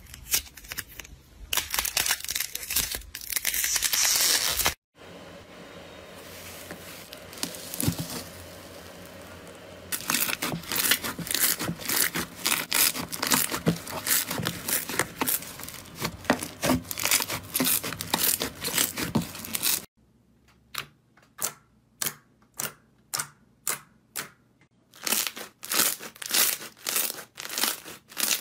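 Hands squeezing and kneading slime: dense wet crackling and popping. There is a quieter stretch of soft squishing about a fifth of the way in, and in the last third there are separate pops, about two a second.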